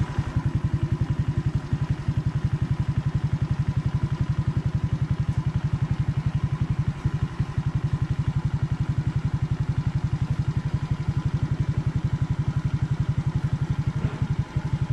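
Suzuki Raider J115 Fi's fuel-injected single-cylinder four-stroke engine idling steadily just after starting, with an even pulsing beat of about ten a second.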